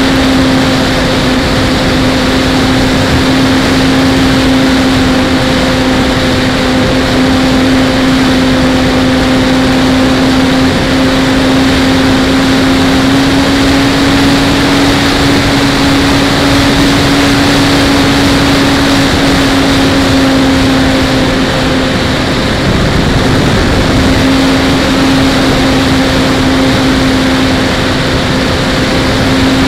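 ParkZone T-28 model plane's electric motor and propeller giving a steady whine, heard from an onboard camera with wind rushing over its microphone. The whine eases off briefly about two-thirds of the way through, then comes back.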